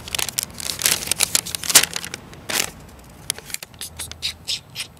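Irregular crinkling and rustling, dense for the first couple of seconds and then sparser and quieter.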